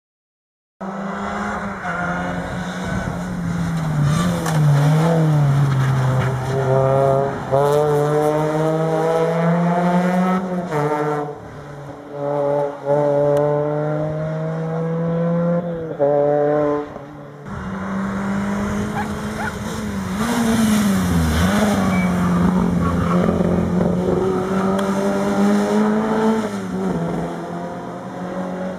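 Rally car engines at full throttle on a tarmac stage, revving up and breaking off at each gear change, one car following another.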